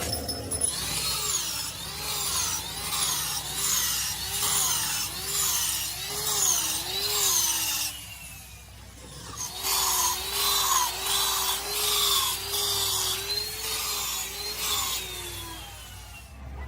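A hand tool scraping back and forth on metal, like filing or sawing, at about three strokes every two seconds. A thin squeal rises and falls with each stroke, and the strokes pause briefly near the middle.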